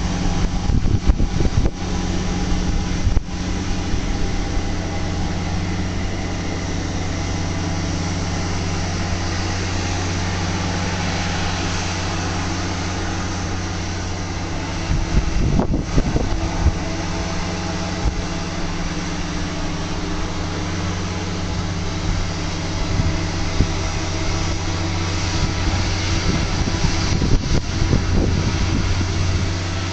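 Diesel engine of an MCR600 rotary snow-removal railway motor car running steadily with a low hum, with brief rough rumbling surges about halfway through and near the end.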